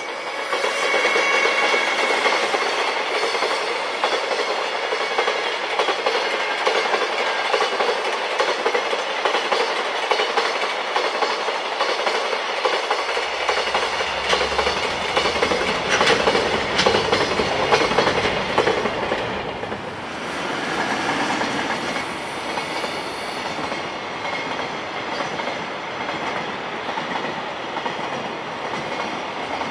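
A train passing at speed, its wheels clattering over the rail joints. A deeper rumble comes in about halfway through and is loudest a few seconds later.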